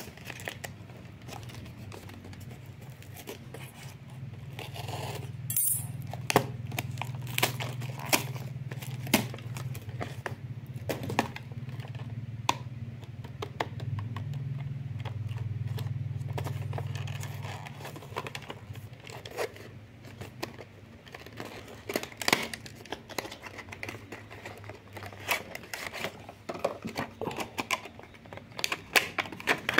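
Hand-unwrapping of packaging: cardboard and packing tape torn and peeled, then a plastic tray crinkling and clicking as it is opened, with many short sharp clicks and rustles. A low steady hum runs under it for a stretch in the middle.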